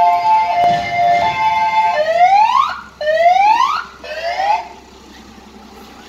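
Fire engine's electronic siren sounding a two-tone hi-lo alternation, then switching to three rising whoops about a second apart before cutting off. After that the truck's engine runs quietly as it drives past.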